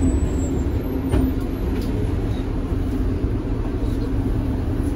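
Tatra KT4D articulated tram heard from inside the car: a steady low rumble with a constant hum over it, and a couple of faint clicks about a second in and just before two seconds.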